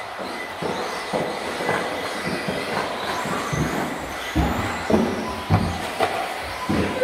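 Several 2wd electric radio-controlled racing cars running on an indoor carpet track, their motors whining up and down in pitch over a steady hiss of wheels on the carpet. Irregular knocks and clatters break in, several close together in the second half.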